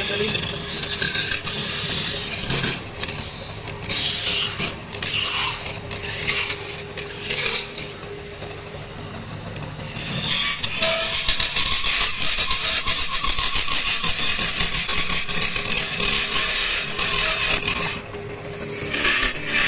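Lathe chisel cutting into a spinning block of raw mahogany, a rasping scrape as shavings peel off. It comes in short strokes at first, then runs continuously from about halfway, with a brief break near the end.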